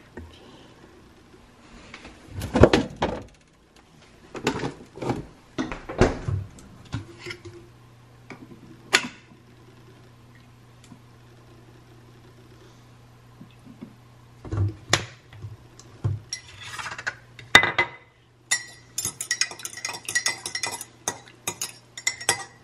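Kitchen clatter of a mug and containers being handled and set on a stone counter, over a low steady hum. Near the end comes a quick run of metal clinks as a fork stirs coffee in a ceramic mug.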